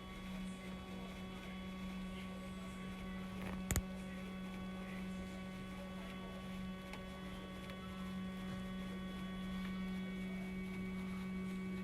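Filter-cleaning unit of a Hitachi RAS-WBK22H air conditioner running, its drive motor giving a steady hum, with a single sharp click nearly four seconds in.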